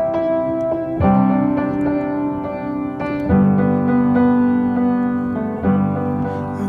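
Background music: sustained piano chords, changing about every two and a half seconds, with no singing yet.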